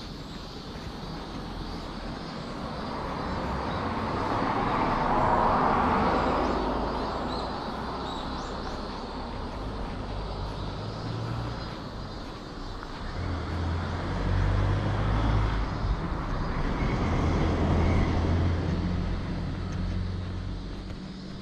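Motor vehicles passing close by on a street. One swells and fades, loudest about five seconds in, then a second one with a low engine hum is loudest in the second half.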